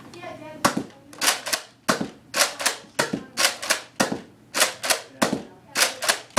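Nerf Retaliator slide-action dart blaster being primed and fired over and over in quick succession: a steady run of sharp plastic clacks and pops, about two a second, often in close pairs.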